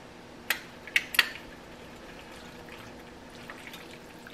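Kitchen tongs clicking against a stainless steel pot: three sharp clicks in the first second and a half. Then come soft, wet sounds as spaghetti is lifted and turned through meat sauce.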